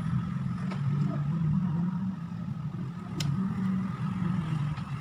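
A low, steady motor-like rumble, with a few light clicks from small parts or tools.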